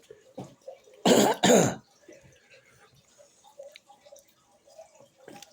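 Two loud coughs in quick succession about a second in, each a short harsh burst that drops in pitch.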